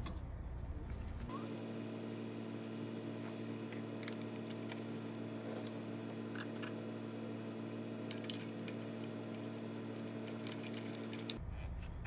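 Faint scattered metallic clicks and light rattles of gloved hands seating a fuel injector and its clamp in the engine's cylinder head, over a steady low hum that starts about a second in and stops near the end.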